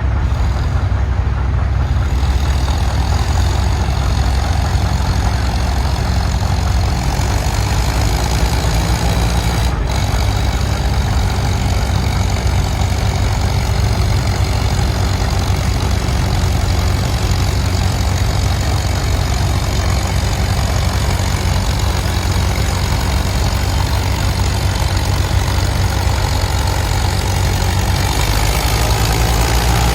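Antique farm tractor engine running steadily, loud and low-pitched, with no change in speed.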